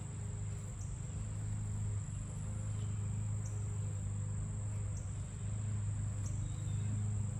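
Insects calling in one unbroken high-pitched drone, over a steady low hum.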